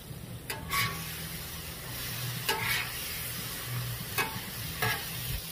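Green beans sizzling on the flat steel top of a Blackstone griddle while a metal spatula scrapes across the steel to gather them. Several short scrapes stand out over the steady frying hiss.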